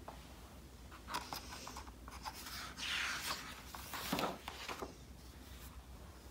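Paper pages of a hardcover picture book being turned: a run of soft papery rustles and brushes, loudest about three and four seconds in.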